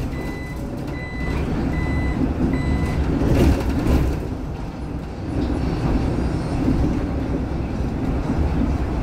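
Four short high-pitched electronic beeps, a little under a second apart, sounding in the cabin of a moving city bus and stopping about three seconds in. They sit over the bus's steady engine and road noise.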